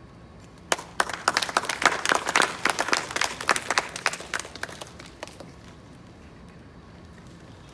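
A small audience applauding: a quick, irregular patter of hand claps that starts abruptly about a second in, peaks, and thins out and stops after about five seconds.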